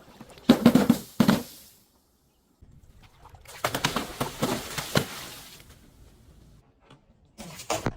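Crunching and crackling as objects are crushed, in three bursts: about a second in, from around three and a half to six seconds, and again at the end.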